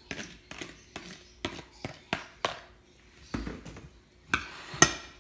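Drained, cooked nopal pieces being tipped from a plastic colander into a glass dish, with a run of short knocks and taps. Near the end a spoon stirring in the dish strikes the glass with a ringing clink.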